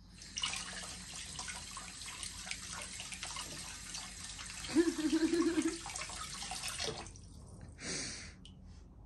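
Water running steadily, as from a tap, starting abruptly and stopping after about seven seconds, with a brief low wavering hum about five seconds in.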